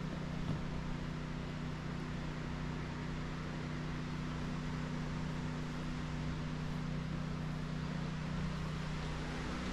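A steady, low mechanical hum with a few unchanging tones, under an even hiss.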